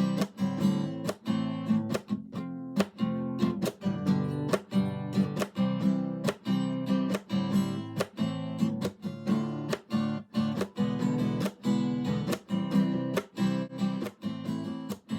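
Acoustic guitar music, strummed in a quick, even rhythm.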